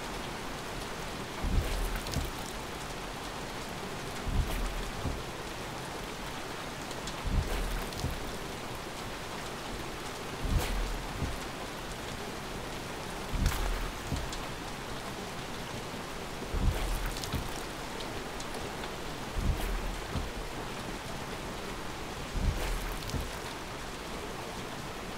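Steady rain pattering on a car, with a low thump and click about every three seconds, evenly spaced like windscreen wipers sweeping across the glass.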